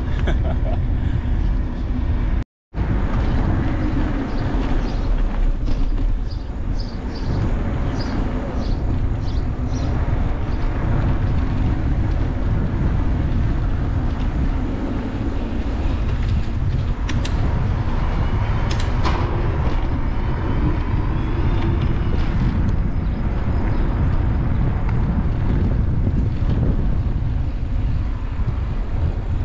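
Wind rushing over the microphone of a camera on a moving e-bike, with tyre noise from the paved lane. The sound cuts out completely for a moment about two and a half seconds in.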